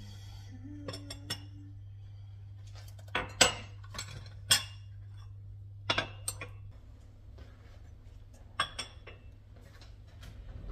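Cups, dishes and a spoon clinking and knocking on a kitchen counter in a dozen or so separate sharp strikes while an herbal tea is prepared, over a low steady hum that stops about two-thirds of the way through.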